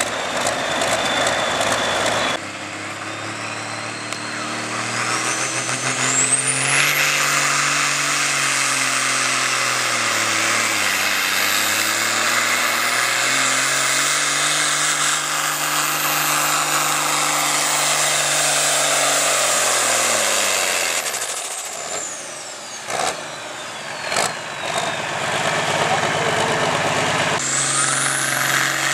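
Diesel farm tractor at full throttle pulling a weight-transfer sled, its exhaust pouring black smoke. The engine revs up with a high whine, sags briefly as it is loaded, then climbs and holds high before winding down as the pull ends. A few sharp knocks follow, and another tractor engine revs up near the end.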